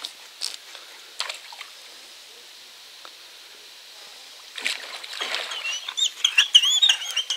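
Hooked common carp thrashing at the surface of the pond, splashing a couple of times near the start and then repeatedly from about halfway through. A bird sings over the splashing near the end.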